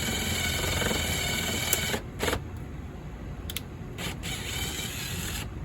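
Power drill driving a self-tapping screw into metal: the motor runs steadily and stops about two seconds in, followed by a few faint clicks and knocks.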